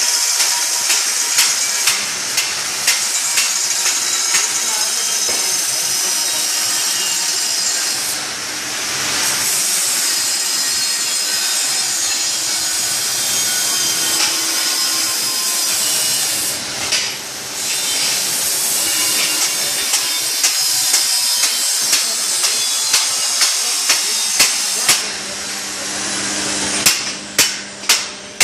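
Stick (manual arc) welding crackling and hissing steadily, with scattered small taps. Near the end a chipping hammer knocks slag off the welds in regular metal strikes, about two a second.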